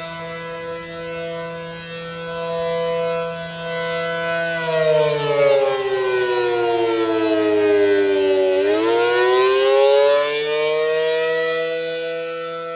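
ACA Allertor 125 rotating warning siren sounding its two-tone chord. The chord holds steady, then about halfway through slides down for several seconds and climbs back up to full pitch: a wail as in the attack signal.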